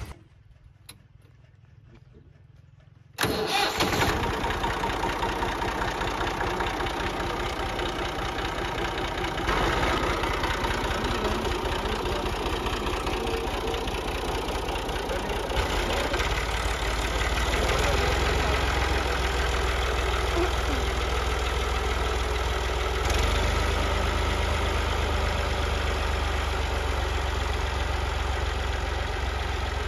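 Massey Ferguson 260 Turbo tractor's three-cylinder diesel engine, coming in abruptly after about three quiet seconds. It then runs steadily as the tractor pulls a tiller through ploughed soil.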